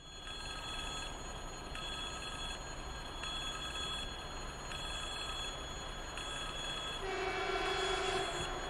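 Level crossing warning bell ringing in repeated bursts, roughly every second and a half, signalling an approaching train. About seven seconds in, a horn sounds for about a second over it.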